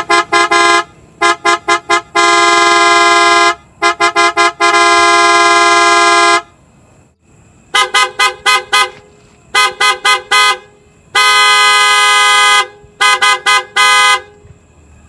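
PIAA Superior Bass Horn on a 2020 Mitsubishi Montero Sport sounding a deep bass tone in quick toots and two long blasts. From about seven seconds in, a PIAA Oto Style dual-tone horn on a Chevrolet Trailblazer sounds in the same pattern, its two tones a little higher in pitch.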